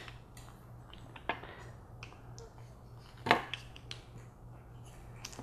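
Screwdriver prying a metal bushing clamp off a sway bar's rubber bushing: a few sharp metallic clicks and snaps, two louder ones about a second in and just past three seconds, over a faint steady hum.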